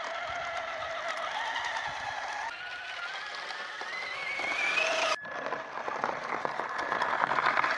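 Traxxas Slash 2WD RC truck's electric motor whining, its pitch rising and falling with speed and climbing steadily in the middle as the truck speeds up, over a hiss of snow pushed by its plow. About five seconds in the sound cuts abruptly to a steadier hiss with a rapid crackle and a fainter steady whine.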